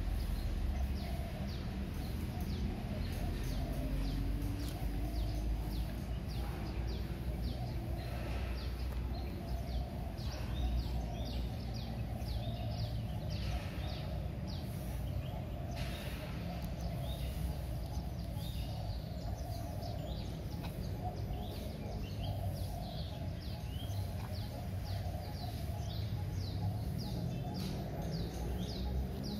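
Small birds chirping outdoors: a near-constant stream of short, high, downward-sliding chirps, several a second, over a steady low rumble of outdoor background noise.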